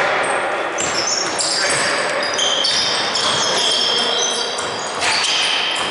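Basketball being played in a hall: many short, high sneaker squeaks on the court and a ball bouncing, over a steady background of voices.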